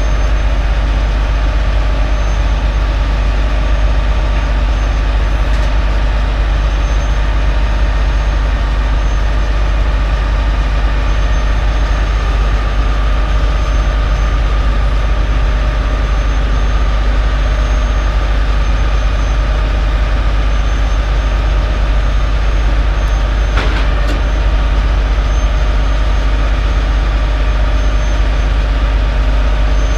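Peterbilt 379 car-carrier truck's diesel engine running steadily at idle, a deep unbroken rumble. A single short knock about three-quarters of the way through.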